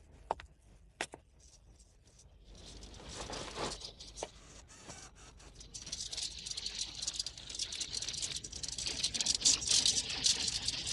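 Film sound effects: two sharp clicks in the first second and a half, then a crackling, rattling hiss full of small clicks that swells in about two and a half seconds in and grows louder from about six seconds in.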